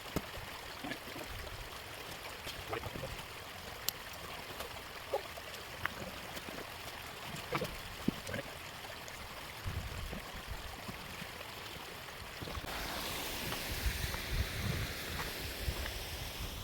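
Steady water-like hiss with scattered light rustles and knocks of waterproof clothing being pulled on. About twelve seconds in a brighter, louder hiss sets in: rain starting to fall.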